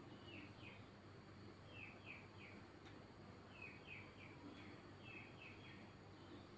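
Faint bird chirps: short falling notes in quick groups of two or three, repeating every second or two over a low steady background hiss.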